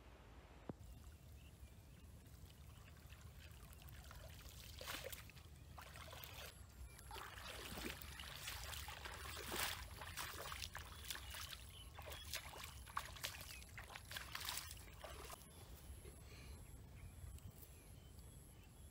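Water splashing and sloshing as a person wades through a shallow muddy pond, with water pouring and dribbling off a fishing net. The splashing is uneven and starts about four seconds in. It dies away a few seconds before the end, leaving only faint handling sounds.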